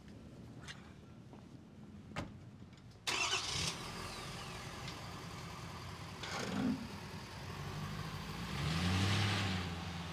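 A few light clicks. About three seconds in, the F-250's 6.7-litre Power Stroke V8 turbo diesel starts with a sudden loud burst and settles into a steady idle, swelling briefly near the end.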